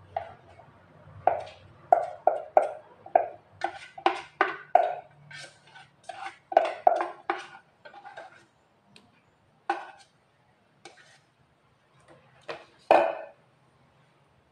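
Metal blender jar knocked again and again against the rim of a metal mixing bowl to shake out ground fish paste: a run of irregular clanking knocks, close together for the first seven seconds, then sparser, with a last louder knock near the end.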